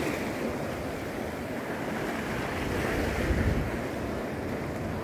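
Small sea waves washing over a rocky reef shore, with wind on the microphone and a brief low gust a little past three seconds in.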